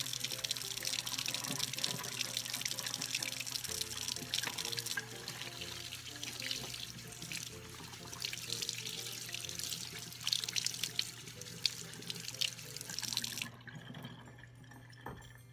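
Kitchen faucet running over soapy hands being rubbed and rinsed, splashing into the sink; the water cuts off suddenly near the end. Background music plays underneath.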